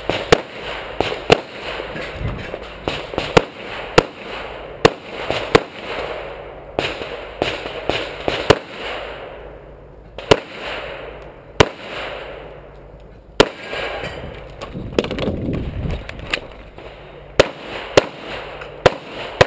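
Semi-automatic pistol fired in quick pairs, about twenty shots in several short strings separated by brief pauses.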